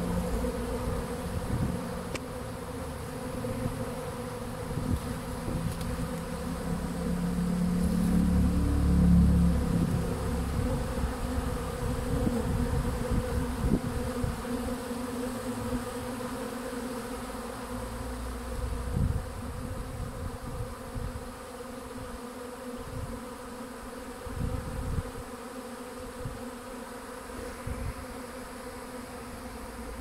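A honey bee swarm buzzing in a dense, steady drone as it settles into a hive. Irregular low rumbles come and go underneath, loudest about eight to ten seconds in.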